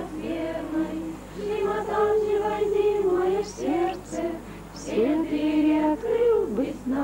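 A group of voices singing a song in Russian together, the melody moving in long held notes.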